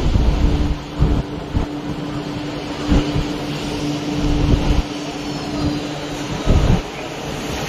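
Hong Kong MTR Kwun Tong Line Q-Train metro train running, heard from inside the car: a steady low rumble with a held hum that stops near the end, and several low thumps from the track.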